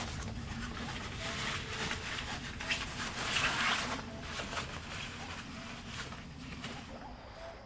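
Rain falling, a steady hiss of many small drop hits that swells about three seconds in and then eases off.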